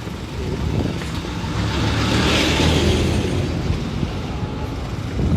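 A car passing by on the road, its tyre noise swelling to a peak about halfway through and then fading, over a steady low traffic rumble.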